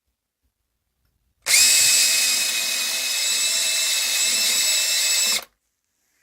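Dremel rotary tool running at high speed, carving wood, with a steady high-pitched whine. It starts abruptly about a second and a half in and cuts off suddenly about four seconds later.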